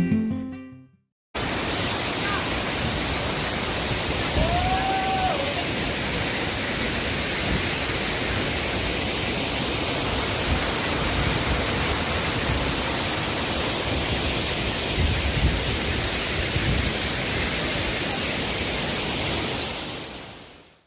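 Waterfall's falling water rushing as a steady, dense hiss, starting abruptly just after a second of guitar music and a brief gap, and fading out near the end. A brief faint whistle sounds about four seconds in.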